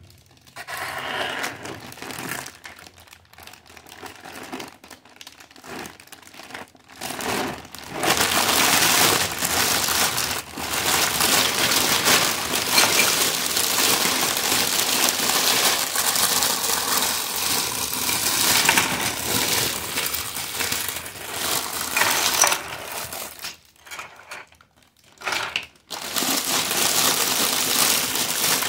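Thin clear plastic bag crinkling and rustling as hands pull it open and work the toy pieces out, with small plastic parts clicking against each other. It starts in scattered bursts, becomes continuous about eight seconds in, pauses briefly near the end, then resumes.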